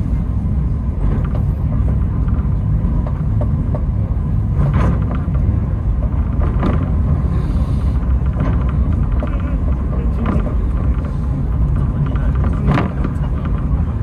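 Takao Tozan Railway funicular car running steadily downhill, heard from inside the car. The running gear makes a continuous low rumble, with a few sharp clicks from the wheels on the track; the loudest click comes near the end.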